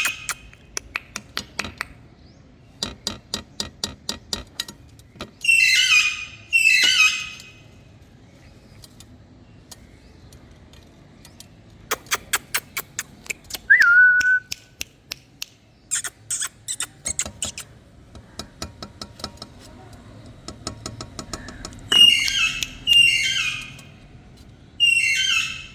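Indian ringneck (rose-ringed) parakeet calling: loud, harsh screeches that fall in pitch, mostly in pairs, with runs of rapid sharp clicks between them and one short whistle near the middle.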